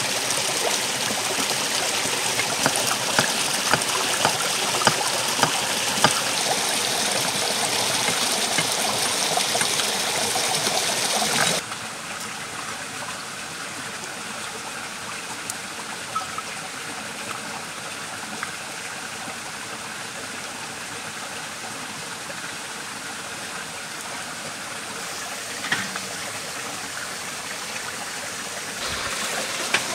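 A stream running steadily, with a knife chopping a carrot on a wooden board: a run of sharp knocks, about two a second, in the first several seconds. About twelve seconds in the sound drops to a quieter stream with a few faint crackles from a wood fire.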